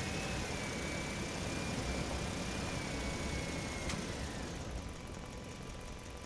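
Truck engine running at low speed with a steady low rumble, joined by a thin high whine that fades out about four seconds in, right after a sharp click; the sound is a little quieter after that.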